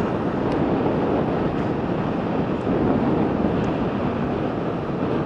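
Steady road noise from a moving vehicle, with wind rushing over the microphone.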